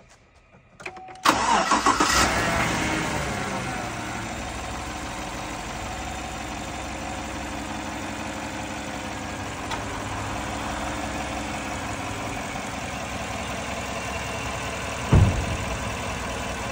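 2014 GMC Sierra engine cranking briefly and catching about a second in on its first start after an alternator replacement, running fast and loud for a couple of seconds, then settling to a steady idle. A single sharp thump near the end.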